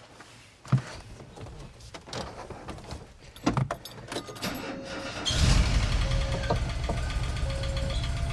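Keys and clicks as the ignition is worked, then about five seconds in the 1988 VW Vanagon's water-cooled flat-four engine starts and runs with a steady low rumble, breathing through a newly fitted catalytic converter and muffler.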